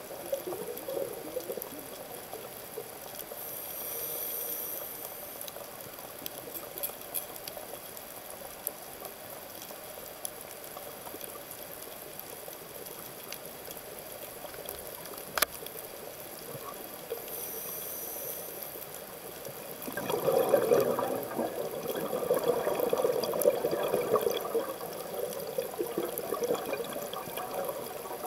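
Scuba diver breathing through a regulator underwater: short hissing inhalations about four seconds in and again around eighteen seconds, and a long spell of exhaled bubbles gurgling from about twenty seconds on, the loudest part. One sharp click in the middle.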